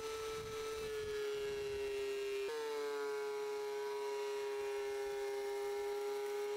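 DeWalt benchtop thickness planer running with a steady motor whine as weathered boards are fed through it, its pitch shifting a little about two and a half seconds in.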